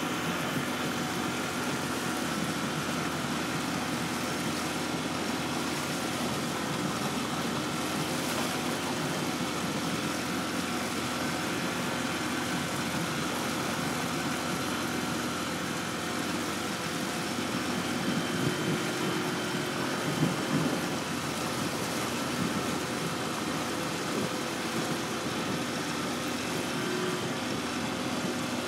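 Boat engine running steadily as the boat moves along the river, with a faint steady hum over the noise of its running.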